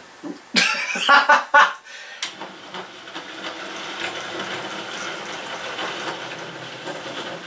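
OO gauge model locomotive's small electric motor whirring steadily as it runs slowly along the track, starting about two seconds in.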